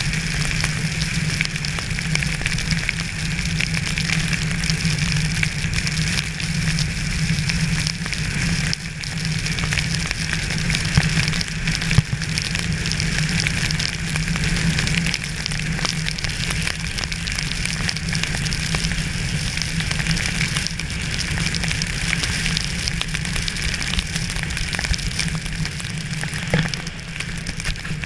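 Steady, dense patter of falling precipitation striking surfaces, full of fine ticks, with one sharper tick about twelve seconds in.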